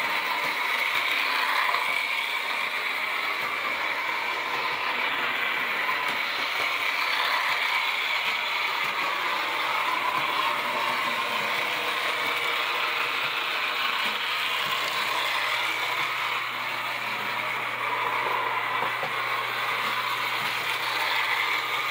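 Carlisle & Finch #18 electric trolley, an early 1900s 2-inch gauge toy run on DC, running around its track: a steady mechanical whir of its motor and gearing with its wheels on the steel rails.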